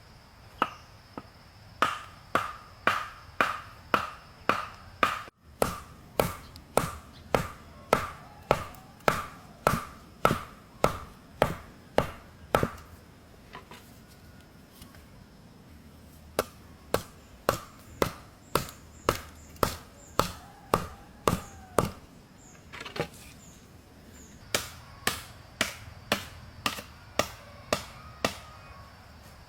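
Wood being chopped with a blade, steady strokes about two a second in three runs separated by short pauses, each stroke with a brief ring.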